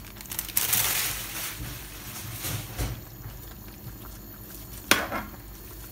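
A plastic bag rustling as chopped kale is shaken out of it into a pan of simmering stew, then the leaves being pushed in with a spatula. One sharp knock of the spatula against the pan comes near the end.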